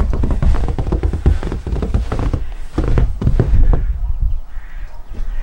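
Crows cawing, with a loud low rumble and rustling during the first four seconds.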